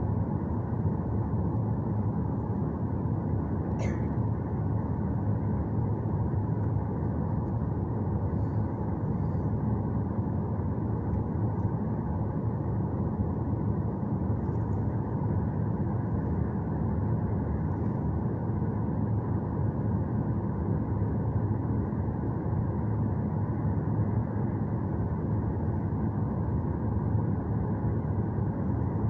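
Steady cabin noise of a jet airliner holding on the runway with its engines at idle, heard from inside the passenger cabin: an even low rumble that neither rises nor falls, with a brief click about four seconds in.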